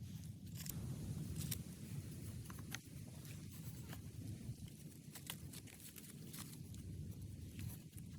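Scattered light clicks and scrapes of something being handled or worked, over a steady low rumble.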